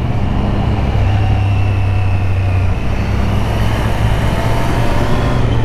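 2024 Triumph Street Triple RS's 765 cc inline-three engine running under way at a steady cruise, its note shifting slightly in pitch a couple of times, over continuous wind rush heard from inside the rider's helmet.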